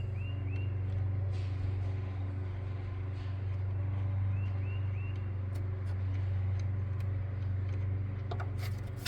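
Steady low mechanical hum, with a few faint light clicks and two short runs of three quick high chirps, one near the start and one about four and a half seconds in.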